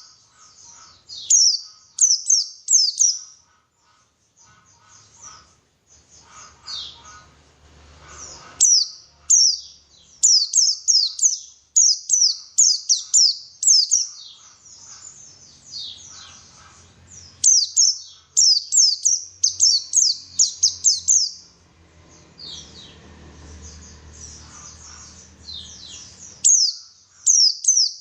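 White-eye (pleci) song: rapid runs of high, thin, down-slurred chirping notes delivered in quick bursts with short pauses between phrases.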